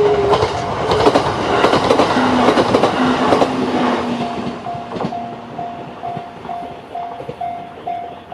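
E131-series electric train passing over the level crossing, its wheels clattering on the rails, with the rumble fading about halfway through. Over it the crossing's electronic warning bell, the JR standard tone, keeps dinging about two and a half times a second, and rings on alone once the train has gone.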